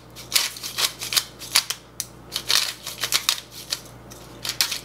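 Disposable peppercorn grinder being twisted over a bowl, giving a quick series of short grinding rasps, about two or three a second, with brief pauses between bouts.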